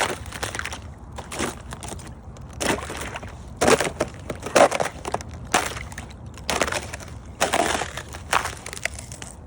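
Thin spring ice cracking and crunching underfoot as someone walks across it, with a crinkling crunch at about every step, roughly one a second.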